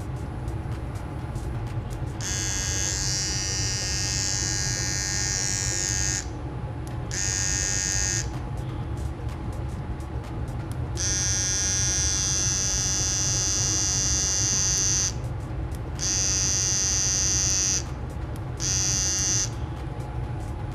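Cordless T-blade hair trimmer buzzing as it is switched on and off five times, each run lasting from about one to four seconds. This is the test of its newly replaced power button, which now starts the motor. A sharp knock comes at the very end.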